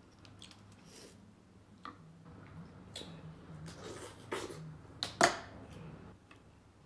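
Close-up eating sounds: wet smacking and chewing while picking at and eating seafood-boil crab and crawfish, with a few sharp clicks at irregular intervals, the loudest about five seconds in.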